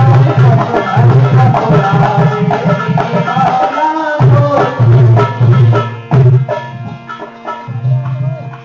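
Instrumental interlude of a Hindi devotional bhajan: a hand drum keeps a steady beat under a melody line. The drum breaks off briefly about four seconds in, drops out around six seconds leaving held notes, and comes back in near the end.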